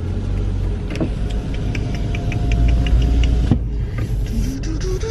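Car running and rolling forward, heard from inside the cabin: a low rumble that grows louder about halfway through, with a quick run of faint high ticks over it and a sharp click near the end of the swell.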